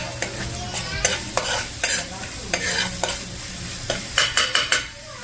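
Metal spoon stirring a pot of simmering curried egg bag, scraping and knocking against the pot, with a quick run of strokes about four seconds in. The curry bubbles and sizzles underneath.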